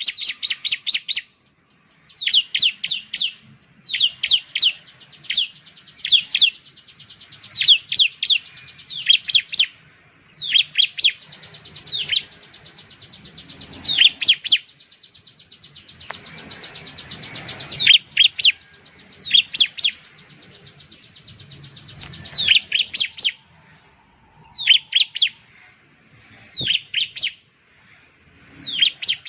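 Bar-winged prinia (ciblek) singing loudly: phrases of quick, sharply falling whistled notes, with a long, fast, even trill lasting several seconds about ten seconds in.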